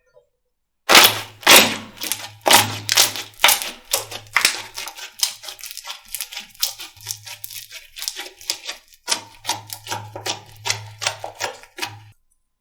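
Slime being squeezed and pressed by hand, giving a dense run of sharp crackles and pops. The crackling starts about a second in, is loudest in the first few seconds, and stops suddenly near the end.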